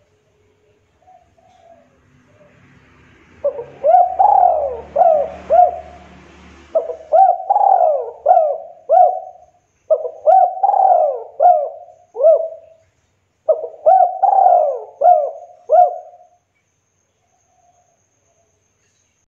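Spotted dove cooing: four phrases of repeated coos, each about three seconds long with five or six notes, preceded by a few faint soft notes.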